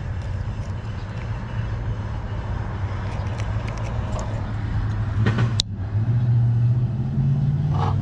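A motor vehicle engine running steadily, its hum growing louder about six seconds in, with a few short clicks of handling about five seconds in.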